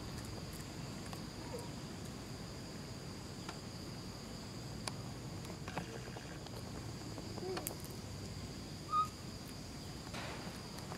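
Steady high-pitched insect drone, with a few faint clicks over a low background rumble. A short high chirp stands out about nine seconds in.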